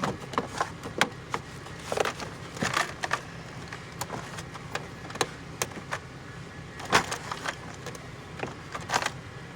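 Irregular clicks, knocks and small clatters of hands and tools working on a car door's interior trim panel, over a steady low hum.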